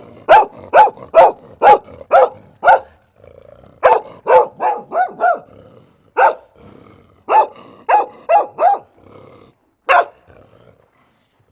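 A dog barking repeatedly in quick runs of short, sharp barks, about two a second, with brief pauses between the runs.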